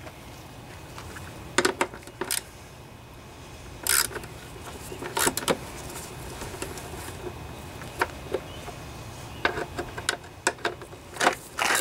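Scattered metallic clicks and clinks of a socket wrench working screws out of an engine's plastic cooling shroud, a few sharp ticks a couple of seconds apart with a small cluster near the end.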